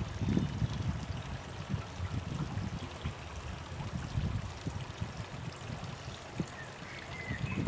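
Garden waterfall splashing steadily into a pond, with low rumbles of wind on the microphone, strongest near the start.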